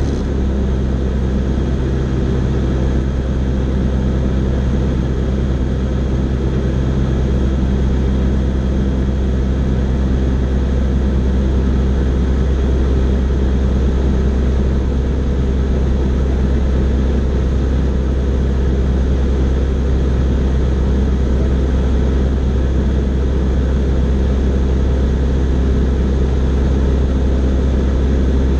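Fly Synthesis Storch S ultralight's engine and propeller droning steadily at constant power, heard from inside the cockpit.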